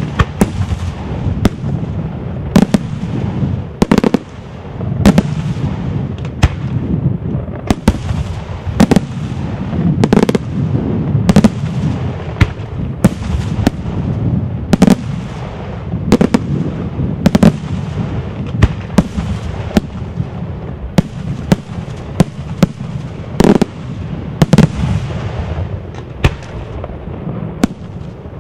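Daytime aerial firework shells bursting in a rapid, irregular string of sharp bangs, about one or two a second, over a continuous low rumble of echoing reports.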